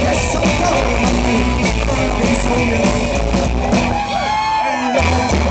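Live rockabilly band playing: hollow-body electric guitar, upright bass and drums. About four seconds in, the bass and drums stop for a moment, leaving swooping, sliding higher notes, then the full band comes back in.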